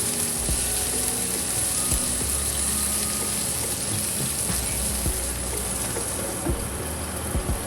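Chicken pieces sizzling steadily on a hot non-stick grilling pan, with a few faint clicks.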